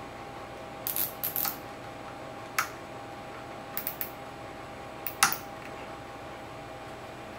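Nylon zip tie being pulled tight around a speaker-crossover capacitor: a few short bursts of ratcheting clicks and scrapes, the sharpest about five seconds in.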